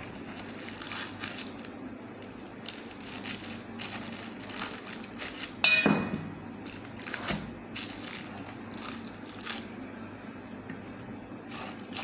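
Baking paper crinkling and rustling, with scraping and handling noise, as freshly baked buns are worked loose and lifted out of a paper-lined metal baking tin. A louder clatter with a short ring comes about six seconds in.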